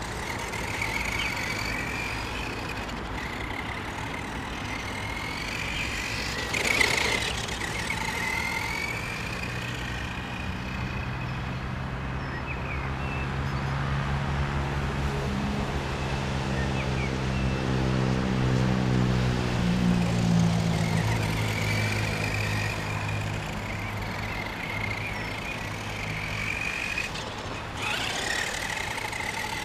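Helion Dominus 1/10 short-course truck's brushed electric motor and gears whining, the pitch rising and falling as it speeds up and slows down. Through the middle a low droning hum swells and fades, and there are two brief rushes of noise, about 7 seconds in and near the end.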